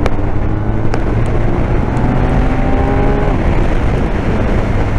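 BMW R1250R's boxer twin engine pulling under acceleration, its note climbing steadily and then breaking off about three seconds in, heard from inside the rider's helmet over a deep rumble and wind rush.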